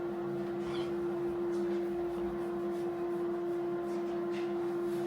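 A steady mechanical hum holding one pitch, with a few faint clicks over it.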